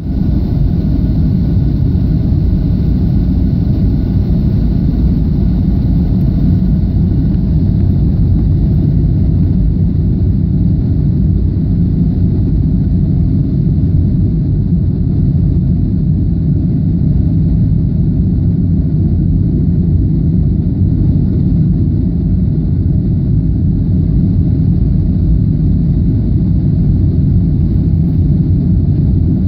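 Airliner cabin noise during descent: a steady, loud low rumble of the jet engines and air rushing past the fuselage, heard from inside the cabin.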